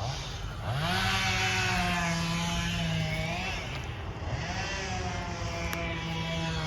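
Small engine, such as a string trimmer's or chainsaw's, revved up to a steady high speed, let back to idle, then revved up and held again.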